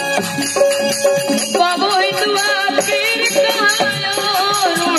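Live Rajasthani devotional bhajan music through a PA system: a steady drone with drum and rattling percussion keeping an even beat. About a second and a half in, a wavering, ornamented melody line comes in over it.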